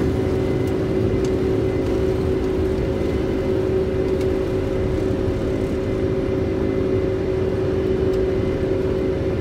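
Steady flight-deck noise of a Boeing 747-400ERF climbing after take-off: a constant rush of air with a low hum and a few held tones underneath.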